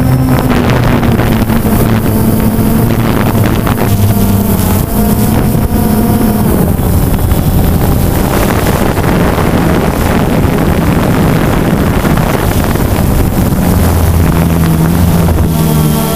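DJI Phantom 2 quadcopter's four electric motors and propellers humming loudly in flight, picked up by the GoPro slung beneath it, with wind buffeting the microphone. The hum's pitch steps up and down several times as the throttle changes.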